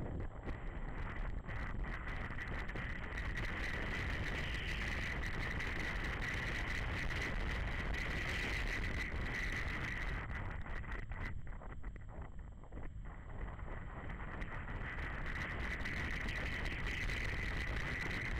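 BMW G 650 GS Sertão motorcycle under way, its single-cylinder engine running steadily, with wind rushing over the bike-mounted camera's microphone. The sound drops back briefly about two-thirds of the way through, then picks up again.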